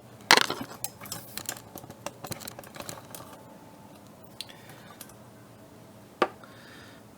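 Hand tools clicking and clinking against metal in a car's engine bay: a quick run of sharp clicks and knocks in the first few seconds, then only the odd click, with one more about six seconds in.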